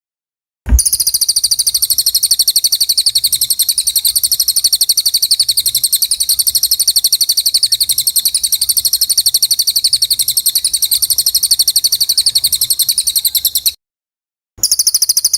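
A songbird singing a very fast, high-pitched chattering trill in one long unbroken run. It starts abruptly after a moment of dead silence, breaks off with a hard edit cut about three-quarters of a second before the end, and returns briefly near the end.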